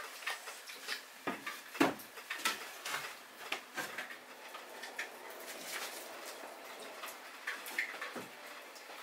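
Scattered light clicks and knocks of small tools and materials being handled during shelf-building work, with one sharper knock about two seconds in.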